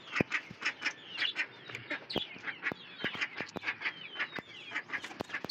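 Birds chirping: a busy, irregular stream of short, high calls, several a second, each sliding downward, with occasional sharp taps among them.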